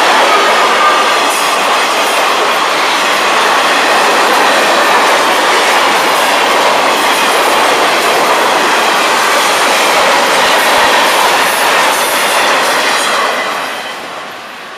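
Freight cars of a long Florida East Coast Railway train rolling past close by: a steady clatter and rumble of steel wheels on the rails. It fades near the end as the train moves away.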